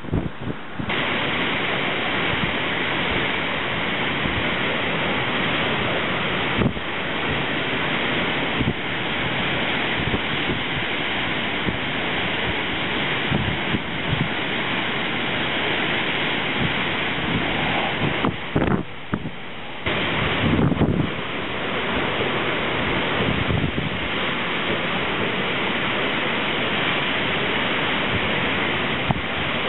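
Strong storm wind from the remnants of Hurricane Irene, gusting through trees and buffeting the microphone, mixed with rain, as a steady rushing noise. There is a brief lull about two-thirds of the way through.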